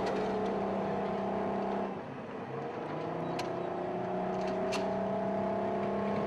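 Heavy military vehicle engine running with a steady droning whine. About two seconds in it drops, then climbs in pitch as it picks up revs. Two faint sharp cracks come about three and a half and nearly five seconds in.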